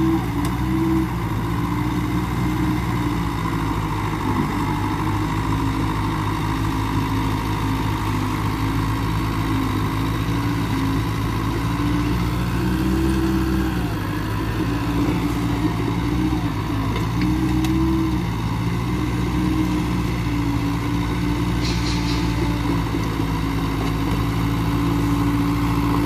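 Mitsubishi BD2E small crawler bulldozer's diesel engine running steadily as it pushes dirt with its blade. The engine pitch rises briefly twice, a little under halfway through and again about two-thirds of the way through, as it takes load or is revved.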